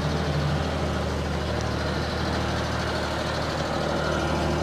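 Small 4x4 mini pickup truck's engine idling steadily, left running because it had not been driven for a week.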